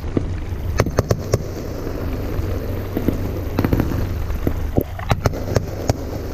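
Aerial fireworks going off across a lake: sharp pops and crackles come in irregular clusters, a few in the first second and more through the middle and end. A steady low rumble runs underneath.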